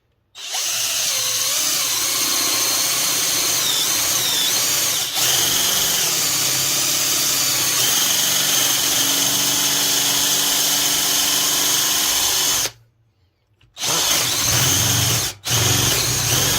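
Power drill boring a 7/8-inch spade bit into wood. It runs steadily at speed for about twelve seconds, then stops and starts again twice in short bursts.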